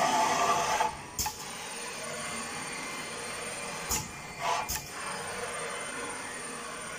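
Automatic AB glue dispensing machine running: a steady mechanical noise, louder for the first second, with sharp clicks about a second in and twice around four to five seconds in.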